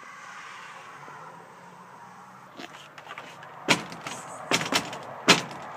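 Low room noise, then a handful of sharp knocks and clicks from about halfway through. The loudest come about two-thirds of the way in and again near the end.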